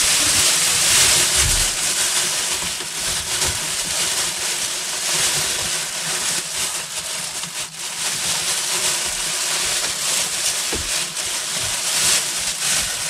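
Thin black plastic bin bag crinkling and rustling as hands press and gather it, a continuous rustle that rises and falls.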